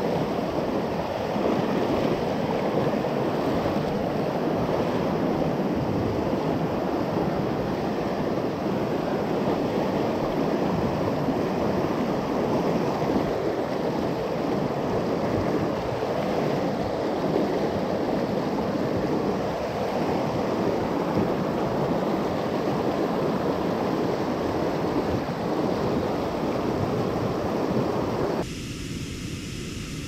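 Steady loud rush of whitewater from a swollen mountain stream flowing over rocks, heard from right in the current. Near the end it changes abruptly to a quieter, steady rush of falling water.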